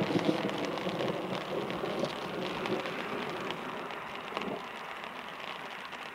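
Steady rain pattering, with many small drop ticks, growing gradually quieter.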